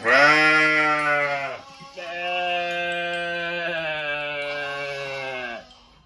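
Two long calls from a farm animal, bleat-like: the first about a second and a half long, the second nearly four seconds, each held at a steady pitch.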